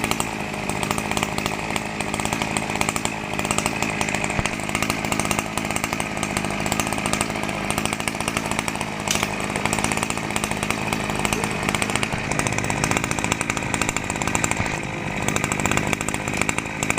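Small engine of a RME260 brush cutter running steadily on a test run after repair.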